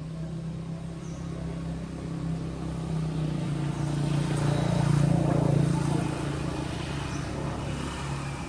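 A motor vehicle driving past: a steady engine hum that grows louder to a peak about halfway through, then fades.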